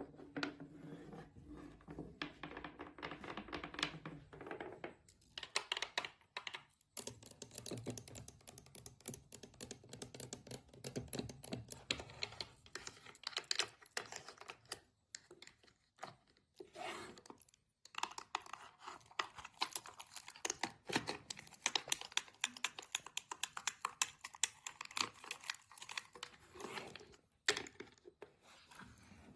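Long fingernails tapping and scratching in dense, rapid clicks, first on a glass bottle and then on a small painted drawer cabinet, with a few brief pauses.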